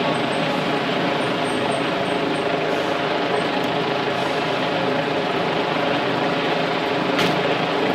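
Mercedes-Benz fire engine's diesel engine running close by as the truck rolls slowly forward, a steady, even engine sound.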